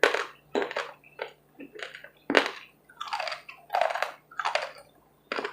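Close-up chewing of crunchy food in the mouth: a quick, irregular run of crisp crunches, two to three a second.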